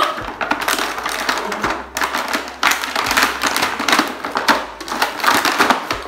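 Clear plastic toy packaging crinkling and crackling as it is pulled apart and handled, in quick irregular crackles.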